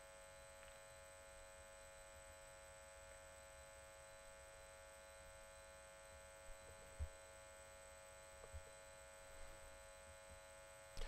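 Near silence: room tone with a faint steady electrical hum and whine, and a few faint soft knocks about two-thirds of the way through.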